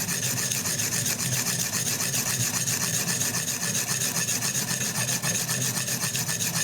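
Sharpening stone being stroked along a knife edge on a guided sharpener with oil as lubricant, making a steady rasping scrape. The pressure is a light touch.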